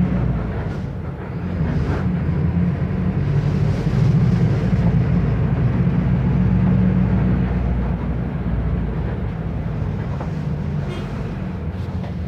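Mercedes-Benz OF 1519 bus's four-cylinder diesel engine running, a steady low drone that grows louder about four seconds in and eases off after about eight seconds.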